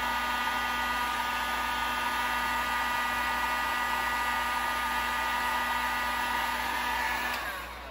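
Electric heat gun running steadily, a blowing hiss with a steady motor whine, as it shrinks heat-shrink tubing over crimped wire connectors. Near the end the motor winds down, its whine falling in pitch.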